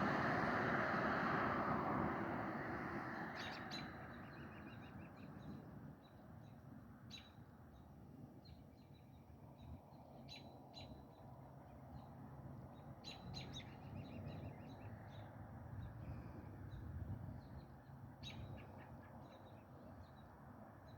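Birds chirping in short clusters of high calls every few seconds. Over the first few seconds, the low rumble of a passing vehicle fades away.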